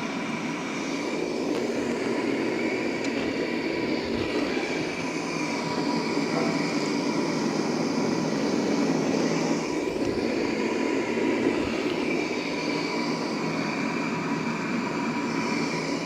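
KnifeSmith propane forge burner running steadily: a continuous rushing noise of burning gas with a couple of faint whistling tones on top. The forge is preheating.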